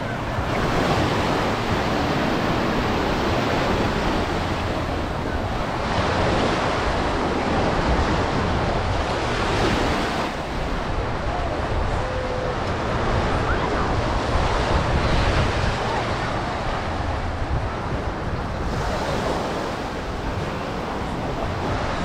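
Small surf breaking and washing up on a sandy shore, the rush swelling and easing every few seconds, with wind rumbling on the microphone.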